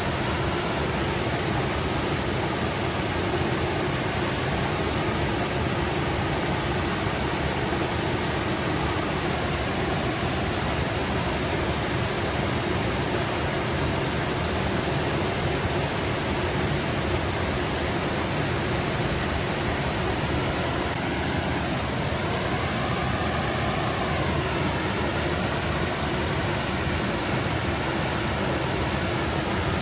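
Forest brook flowing and babbling steadily over rocks.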